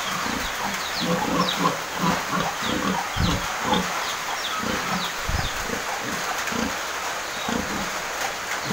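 Pigs grunting in their crates: many short, low grunts, two or three a second, with faint short high chirps above them.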